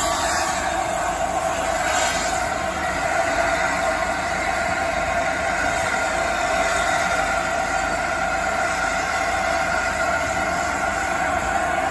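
LNER A4 class steam locomotive 60007 standing in steam, with a steady, even hiss of escaping steam and no exhaust beats.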